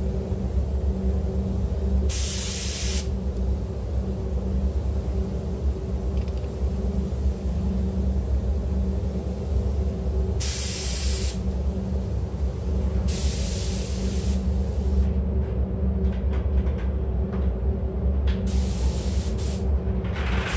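Compressed-air spray gun hissing in about four short bursts, each a second or so, as coating is sprayed onto a car body. Under it runs the steady low hum of the spray booth's ventilation fans.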